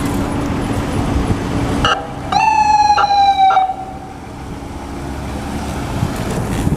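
Ambulance siren: a brief blip, then one loud tone of about a second and a half that falls slightly in pitch, over steady street traffic.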